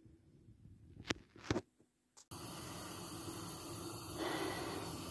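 Two soft clicks, then a faint steady hiss from a frying pan of oil heating on a gas stove.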